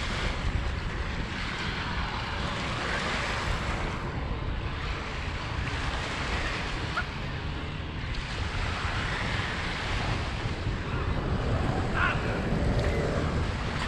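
Wind buffeting the microphone over Lake Michigan waves washing onto the beach, the wash swelling and easing every few seconds.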